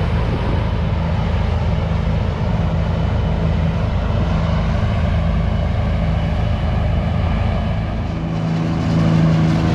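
Heavy diesel farm machinery engine running steadily, its pitch and tone shifting about eight seconds in.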